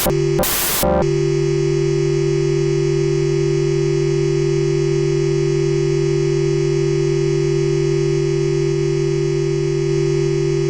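Dexed FM synthesizer (a software Yamaha DX7 emulation): two short bursts of noise, then about a second in a single steady tone with many overtones that drones on unchanged.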